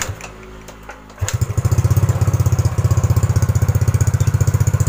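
Yamaha Mio GT scooter's single-cylinder engine being kick-started. A few knocks of the kick-starter, then about a second in it catches and settles into a steady idle. The fast exhaust pulse is loud and raspy because the muffler has been gutted.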